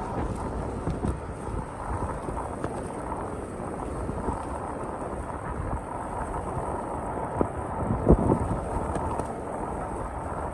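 Storm wind buffeting the microphone over a low, steady rumble of street noise, with a sharp knock about eight seconds in.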